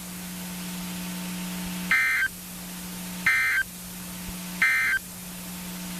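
Three short electronic beeps, evenly spaced about a second and a half apart, over a steady low hum on a NOAA Weather Radio broadcast between messages.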